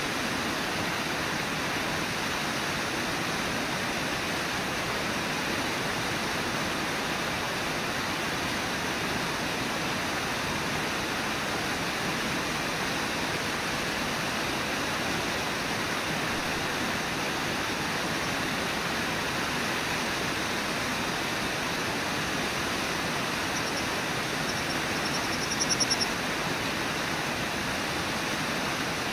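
Steady rush of the river water at Brooks Falls. Near the end, a brief high-pitched pulsing sound rises over it.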